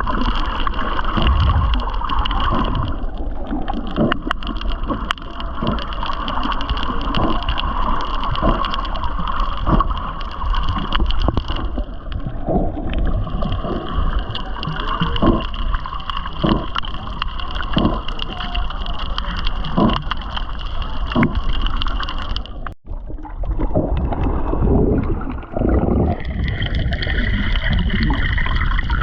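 Water sloshing and gurgling around a GoPro camera held by a snorkeler, muffled, with irregular splashes and a steady high hum underneath. The sound breaks off sharply about 23 seconds in and resumes with a slightly different hum.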